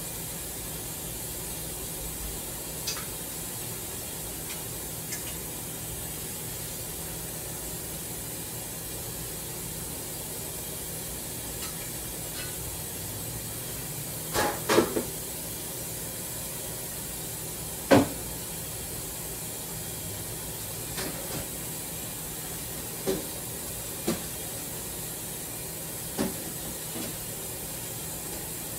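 Steady hiss with a low hum, broken by a handful of sharp knocks and clinks: a quick double knock about halfway through, the loudest single knock a few seconds later, and a few lighter ones near the end.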